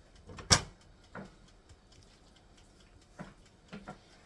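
Kitchen handling noises: one sharp knock about half a second in, then a few softer knocks and clicks.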